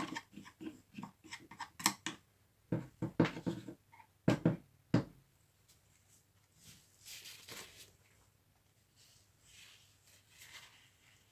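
Jigsaw parts being handled on a workbench: irregular clicks and knocks of small plastic and metal pieces for about five seconds, then softer rubbing and brushing sounds.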